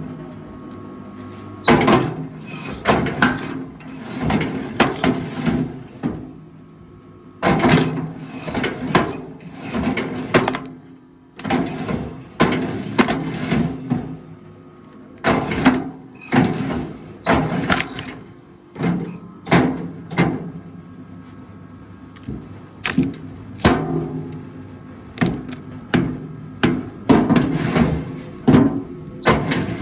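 Rack-type log splitter at work on firewood: wood creaking and squealing under the wedge in spells of a few seconds, with cracks and knocks. Separate knocks and clacks follow later on.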